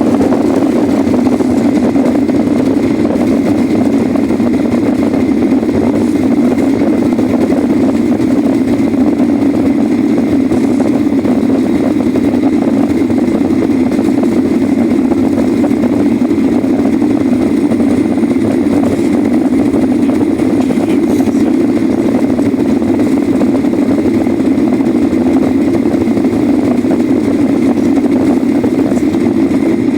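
Boeing 737 jet engines running steadily at high power during takeoff, a constant loud noise with a faint steady whine above it.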